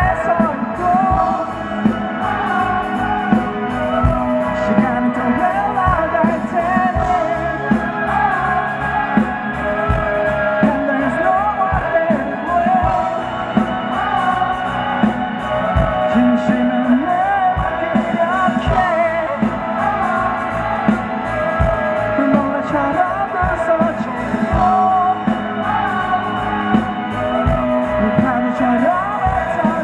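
Live rock band playing through a festival PA: drums keeping a steady beat, with bass, electric guitars and singing.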